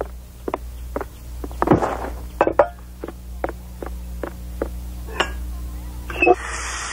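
Cartoon footsteps on a wooden floor, short taps about two a second, with a metal kettle clinking as it is carried. Near the end the kitchen tap is turned and a steady hiss of water starts.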